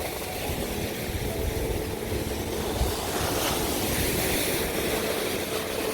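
Ocean surf washing steadily on the beach, with wind rumbling on the microphone.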